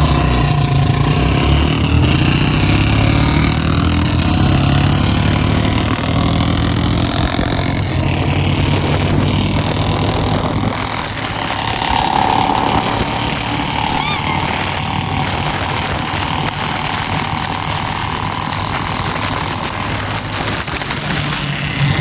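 Two Royal Enfield Bullet 350 single-cylinder motorcycles, one with a free-flow silencer, pulling away hard in a drag race. Their engine note rises over the first few seconds, then fades as they move off about halfway through.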